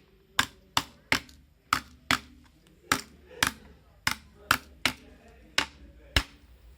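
Light, sharp blows tapping the bent frame of a Redmi 9C phone to straighten a dented part. About a dozen strikes, roughly two a second, some in quick pairs.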